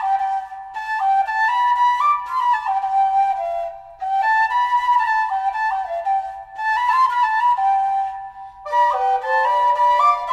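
Flute playing a melody in short stepwise phrases with brief pauses between them. Near the end a second, lower part joins in harmony.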